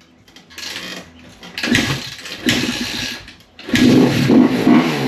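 Single-cylinder four-stroke engine of a 2017 Kawasaki KX250F dirt bike sputtering in short bursts as it tries to fire, then catching about three and a half seconds in and running loudly with uneven revs. The freshly rebuilt engine struggles to stay running, a fault the owners suspect is fuel delivery and trace to a bad fuel pump connection.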